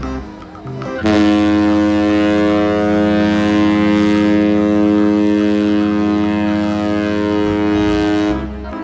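A ship's horn blowing one long, steady low blast that starts about a second in and stops near the end.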